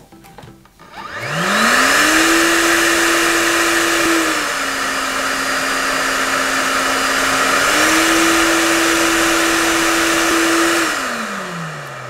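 UniPro Optimal hair dryer with a BLDC motor switched on about a second in: a rush of air and a motor whine that climbs quickly to full speed. About four seconds in it drops to a lower pitch on the low-speed setting, climbs back up near eight seconds, and winds down with a falling whine as it is switched off near the end.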